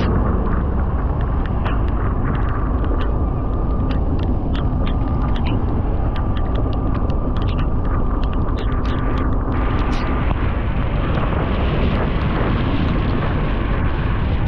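Wind buffeting the microphone on a moving motorcycle, over engine and road noise. A faint steady tone runs through the first two-thirds, with scattered small clicks.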